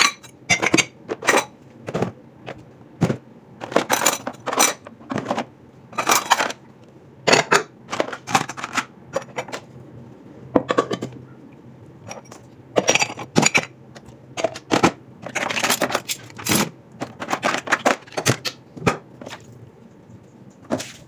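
Plastic bowls, cups and metal utensils clattering as they are washed and stacked: irregular clinks and knocks, several a second at times.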